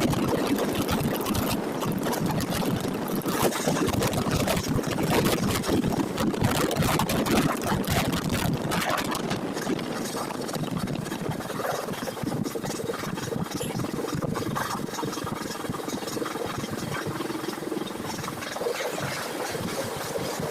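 A moving vehicle heard from on board: a steady rumble with continual rattling and clatter, easing slightly about halfway through.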